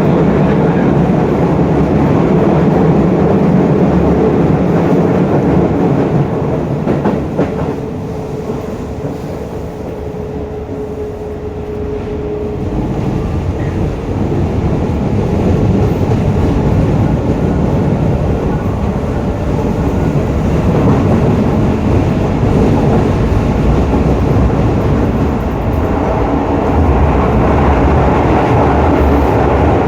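Onboard running sound of Hokuso Railway 7300-series car 7301, a GTO-VVVF inverter train: steady wheel, rail and motor noise. About a third of the way in it grows quieter for a few seconds, with a steady hum, then comes back up to full level.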